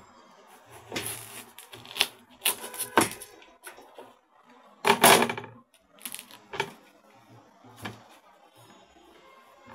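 Kitchen cleaver crunching down through a watermelon's thick rind in several sharp cracks, the melon breaking open with the loudest, longest crunch about five seconds in. Softer knocks follow as the halves are handled on the countertop.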